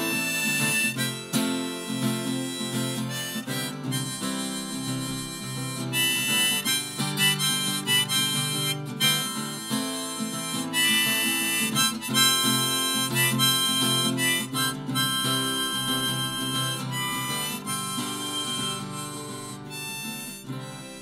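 Harmonica solo played over a strummed acoustic guitar, the player blowing a run of changing notes while strumming chords. The playing dies away near the end.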